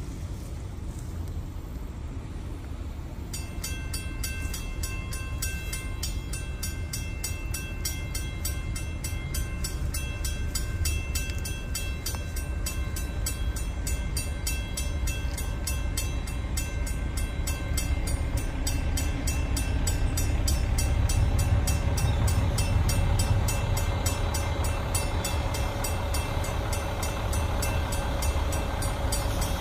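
Grade-crossing warning bell starts ringing about three seconds in, with rapid, even strokes, over the low rumble of a diesel locomotive that grows louder as it approaches slowly with freight cars.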